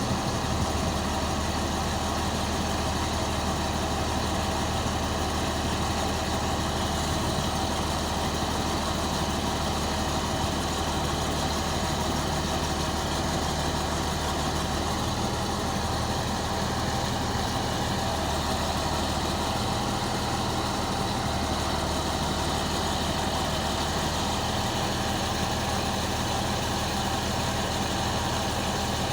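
Engine of a large Mercedes-powered machine idling steadily.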